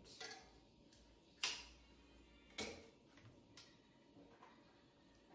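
A few light knocks and clicks about a second apart, the first the loudest: a glass candle jar set down on a granite countertop and a kitchen cabinet door being opened.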